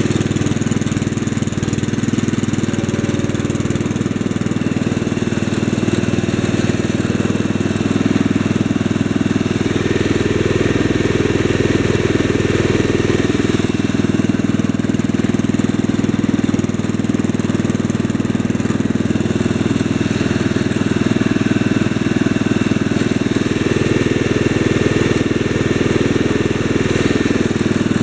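The 8-horsepower engine of a 1965 Wheel Horse 875 hydrostatic garden tractor running steadily, with a slight swell about ten seconds in, during a test run of the newly adjusted transmission linkage.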